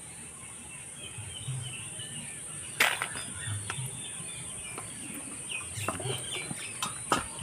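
Hands rubbing lemon juice into a whole raw chicken in a steel bowl, with a few sharp clicks of handling against the bowl, the loudest about three seconds in. Birds chirp in the background over a steady high hiss.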